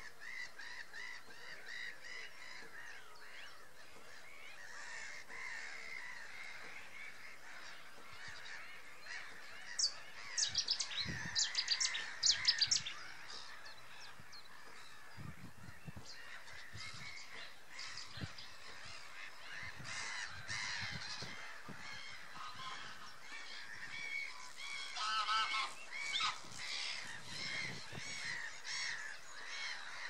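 A colony of black-headed gulls calling continuously, many harsh cries overlapping, with louder bursts of calling about ten to thirteen seconds in and again around twenty-five seconds.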